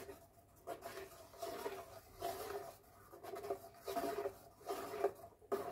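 Metal spoon scraping thick ground masala paste off stainless-steel and stirring it in the pot, a run of soft, repeated scrapes.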